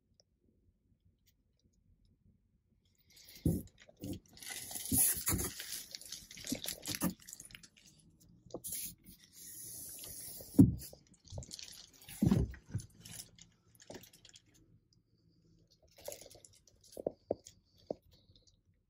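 Close-up rustling and crinkling with several dull knocks, starting after about three seconds of near silence. It sounds like a handheld phone being moved around a truck cab, and it ends in a few quiet clicks.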